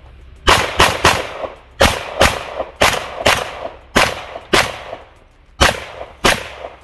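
Rapid handgun fire on a timed shooting stage: eleven shots, a quick string of three about half a second in, then mostly pairs of shots, each with a short echo.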